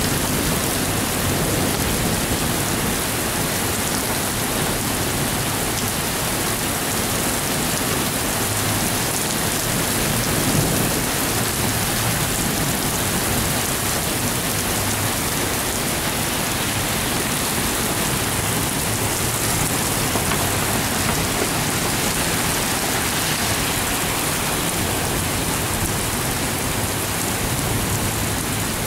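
Heavy rain pouring steadily in a thunderstorm, a dense even hiss of rain hitting the ground and surfaces.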